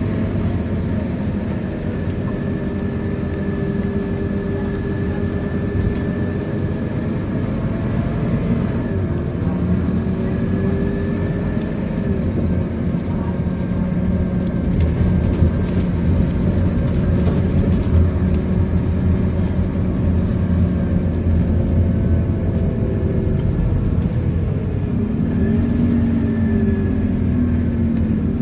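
Scania K230UB bus engine and ZF gearbox heard from inside the passenger saloon while the bus drives, the engine note holding and then shifting pitch several times as it changes speed, with a faint whine above it. A few light rattles or clicks come around the middle.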